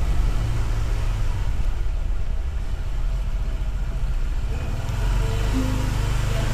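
Steady low rumble of a road vehicle underway, most likely a motor scooter being ridden, with faint music underneath.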